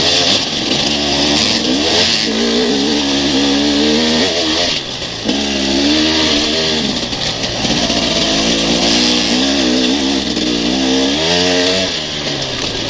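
Enduro dirt bike engine revving up and down under load on a rough trail climb, its pitch rising and falling with the throttle and a brief drop about five seconds in.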